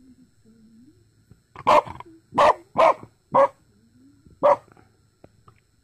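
Small fluffy dog barking five times, sharp barks starting about a second and a half in, the last a little apart from the rest. The dog is barking at wasps it is hunting.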